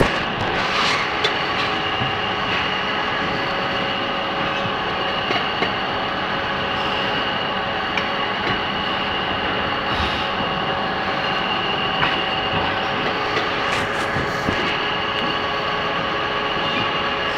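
Steady din of meat-packaging line machinery running, with a few steady whining tones and occasional light clicks and knocks.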